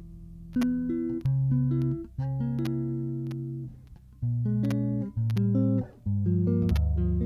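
Sadowsky Metroline 21-5 five-string electric bass with an ash body, playing a line of single plucked notes that ring and die away. Some notes are held for a couple of seconds, and the notes come faster near the end.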